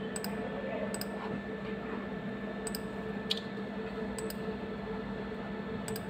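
About six short, sharp clicks of a pointing device's buttons, spread through the few seconds, the loudest a little past three seconds in. A steady low hum runs underneath.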